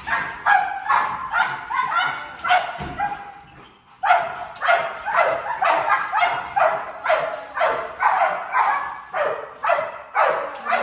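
Two Belgian Malinois barking over and over on leash, sharp barks about two a second, with a short lull about three seconds in before they start again. This is encouraged warning barking as part of bark conditioning for protection work.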